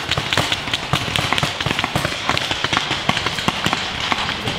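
Several paintball markers firing in rapid, irregular volleys, several sharp pops a second.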